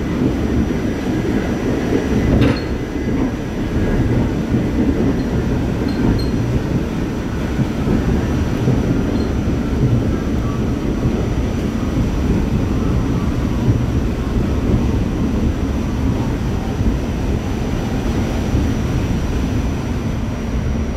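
Staten Island Railway R44 subway car running at speed, heard from inside the car: a steady low rumble of wheels on the rails with a faint high whine, and one sharper knock about two and a half seconds in.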